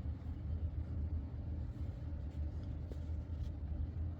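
Low steady background hum with a few faint clicks scattered through it; the horn is not sounding.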